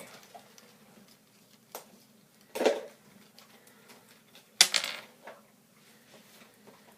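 Three clattering knocks of small hard objects handled or set down on a hard surface, the loudest about four and a half seconds in.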